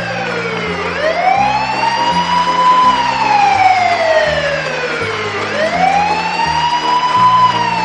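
Siren wailing in slow rise-and-fall cycles. It climbs twice, about a second in and again after about five seconds, each time followed by a long fall, over a background music track of low held notes.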